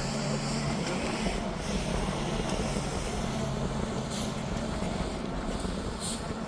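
Class C motorhome running at low speed, its engine hum and road noise heard from inside the cab. Two short high-pitched ticks come about four and six seconds in.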